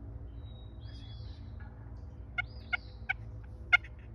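Wild turkey calling: a run of about five short, sharp notes roughly a third of a second apart, the last one the loudest. Songbirds sing faintly behind it.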